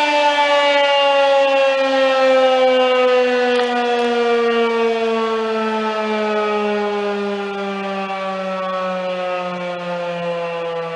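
Federal Signal 2001-130 electromechanical outdoor warning siren winding down: its tone falls slowly and steadily in pitch and grows gradually quieter.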